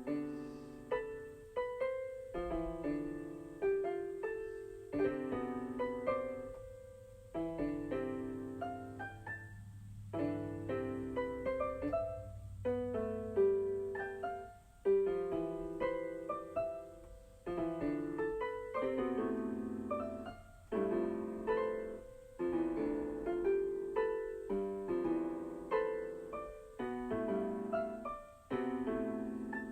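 Background keyboard music: an electric keyboard playing a piano tune with chords and a melody, notes struck at a steady pace.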